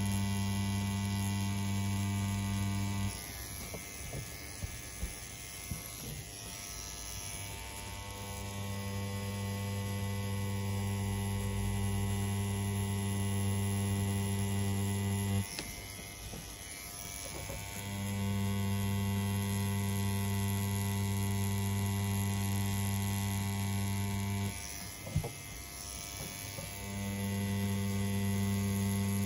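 CNC P6 rotary tattoo pen machine running at a 3.6 mm stroke with a steady electric hum while lining a tattoo. The hum stops three times, each time for a few seconds, and starts again, with a few light clicks in the first gap.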